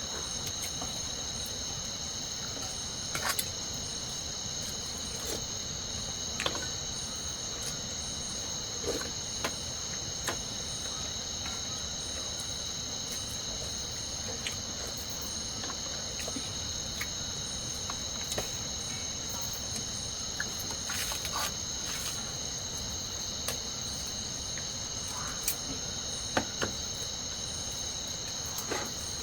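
Steady, unbroken, high-pitched insect chorus, with a few faint scattered clicks and knocks.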